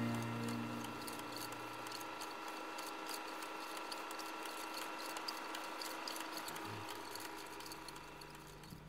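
The last held notes of guitar music die away in the first second. After that there is faint crackling and clicking over a low, steady hum: the surface noise of an old film or tape recording.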